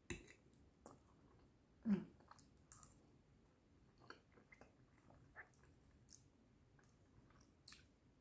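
Faint, close-up chewing of pork rib meat gnawed off the bone, with scattered soft mouth clicks and smacks. A short voiced hum about two seconds in is the loudest moment.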